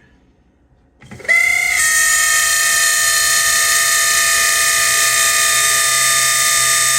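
Cold 1979 Chevy van heater blower motor starting up about a second in, its pitch climbing briefly and then holding as a loud, steady, high-pitched squeal. This is the squeal it makes only when cold; the owner suspects the motor either needs cleaning and a little oil or needs new bearings.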